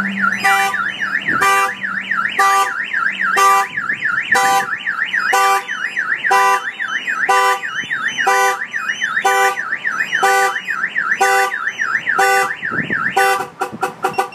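Aftermarket Autopage RF-425 car alarm siren going off on a Chevy Silverado pickup after the truck was hit: a fast warbling wail, with a honk-like pulse about once a second. It cuts off about a second before the end.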